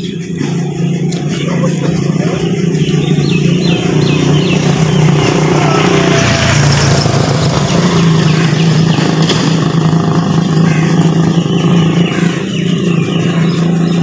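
Small engine of a motorcycle rickshaw running steadily, swelling as the rickshaw passes close by around the middle.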